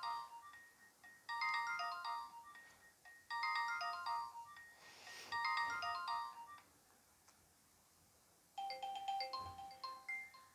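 Nokia 2600 ringtone: a short electronic melody repeating about every two seconds, stopping a little past halfway. After a pause of about two seconds a different ringtone melody begins.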